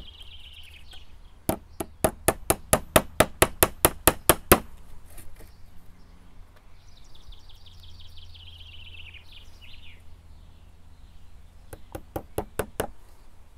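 Small hammer driving 3/4-inch frame nails into a wooden beehive brood frame: a quick run of about a dozen sharp taps, a pause, then a shorter run of about half a dozen taps near the end.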